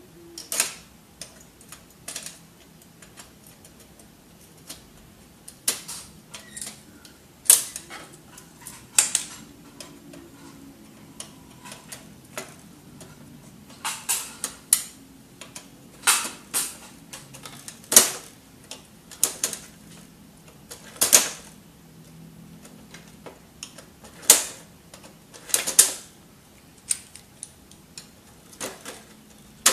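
Irregular sharp clicks and clacks of plastic and metal printer parts being handled and worked loose during disassembly of an inkjet printer's carriage and rail assembly. Some come singly, seconds apart, others in quick runs of two or three.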